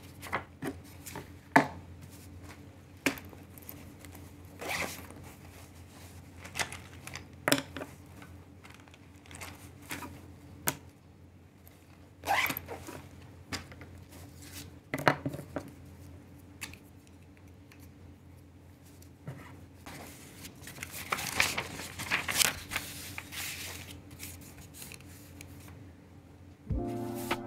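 Paper sheets being flipped and rustled on a desk, with scattered sharp clicks and taps as pens and other stationery are picked up and set down. The rustling is busiest a little after twenty seconds in.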